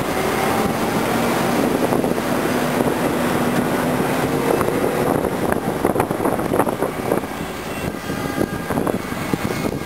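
Heavy city traffic heard from the open top deck of a double-decker tour bus. A dense, steady rumble of engines and tyres carries a steady low tone from the bus in the first half, with scattered clicks and knocks later and some wind on the microphone.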